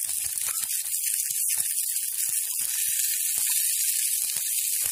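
Sliced onions with garlic and ginger sizzling in hot oil in a kadhai: a steady high hiss with scattered small crackles.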